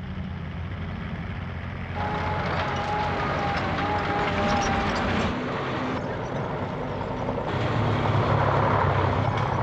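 Tank engines running: a steady low rumble that shifts several times, with a thin high squeal for a few seconds near the middle.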